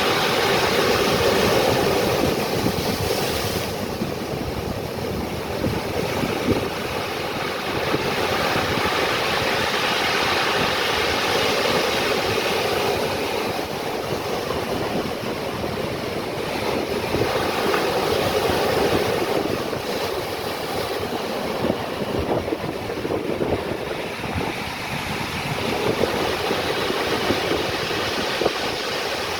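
Ocean waves breaking and washing on the shore, a steady rush of surf that swells and eases every several seconds.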